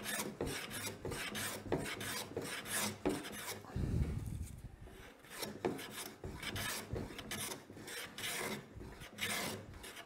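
Stanley bench plane with a freshly sharpened iron taking shavings off a rough maple board in repeated strokes, each stroke a scraping hiss, with a short lull about halfway through. The board is still being flattened.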